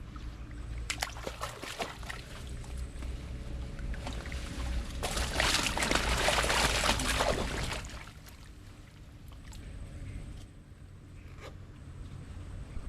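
Water sloshing and splashing, with a few sharp clicks early and a louder splashing stretch in the middle, over a steady low rumble.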